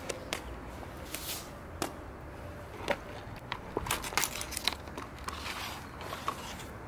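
Handling noise: nitrile gloves rustling and a cardboard box of window tint film being opened and the film roll pulled out, with irregular crinkles and short sharp clicks.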